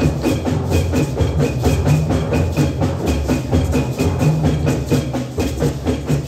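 School percussion ensemble playing: a row of small hand drums keeps up a fast, steady rhythm of strikes while a pair of timpani sound low notes underneath that change pitch every second or so.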